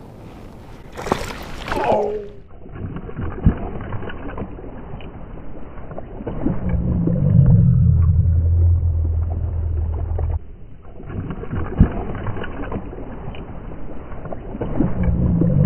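Muffled low rumbling with a few sharp knocks and splashes as a hooked bass thrashes and jumps at the surface.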